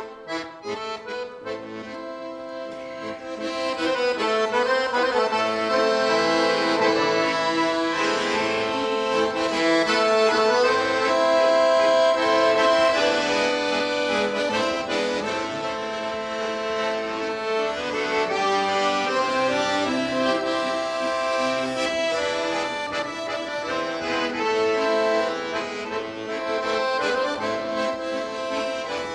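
Polverini piano accordion playing the instrumental introduction to a hymn: held chords under a melody line, swelling louder about four seconds in.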